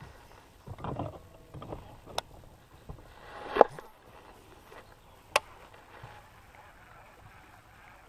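Baitcasting rod and reel being handled and cast: soft rustles and knocks, a sharp click about two seconds in, a rush of noise building to a sharp hit about three and a half seconds in, and another sharp click a little after five seconds.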